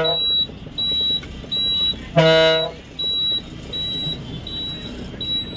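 Bus horn blowing a short toot at the start and again about two seconds in, for about half a second each time. Under it, a high electronic beep repeats about every three-quarters of a second over a low engine rumble.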